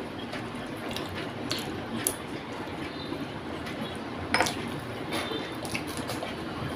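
Fingers picking fish flesh off the bones on a plate, with several short sharp clicks and taps against the plate over a steady background noise; near the end the bite is put into the mouth.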